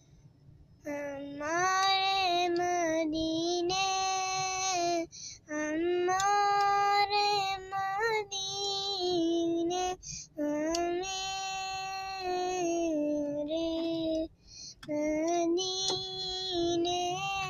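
A boy singing a naat (Urdu devotional song) unaccompanied, in long held phrases that start about a second in, with three short breaks for breath.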